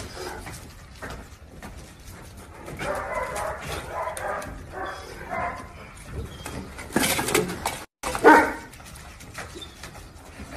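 An animal calling in a series of short cries, with a loud, sudden noise about eight seconds in.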